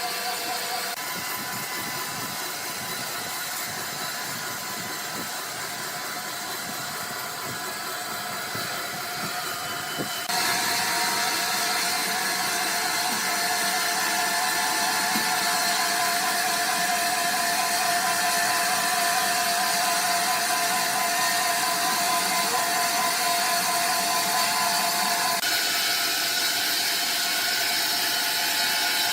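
Sawmill machinery running steadily, a constant mechanical din with high whining tones. The sound changes abruptly and grows louder about a third of the way in, and shifts again near the end.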